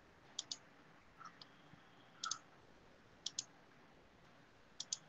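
Four quick double clicks, each pair a split second apart and the pairs spread about a second or more apart, with a couple of fainter ticks between them, over faint steady hiss.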